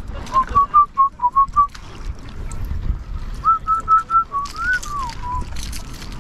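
A person whistling two runs of short, steady notes, the second run ending in a falling glide.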